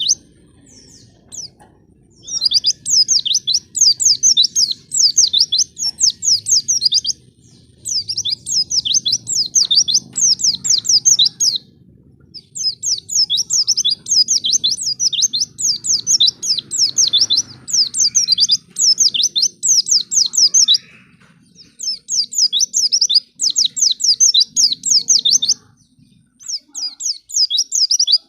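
White-eye (pleci) song: long runs of rapid, high twittering notes, each run lasting several seconds, broken by short pauses.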